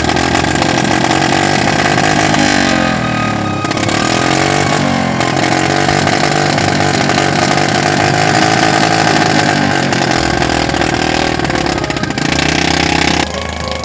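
Suzuki motorcycle engine converted to drive a log-hauling cable winch, running loud and hard under load, its pitch dipping and rising again several times. It drops off sharply near the end.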